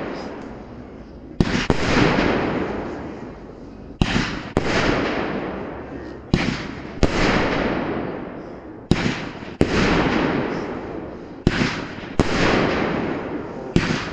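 Funke Pink Crossette firework shooting: pairs of sharp bangs about half a second apart, repeating roughly every two and a half seconds, each pair trailing off in a fading crackling hiss.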